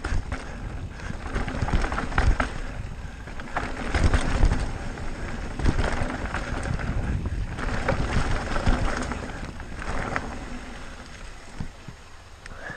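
Wind rushing over the helmet-camera microphone and tyres rumbling over a rocky dirt trail as an e-mountain bike rolls downhill, with a few knocks from the bike going over rocks. It dies down near the end.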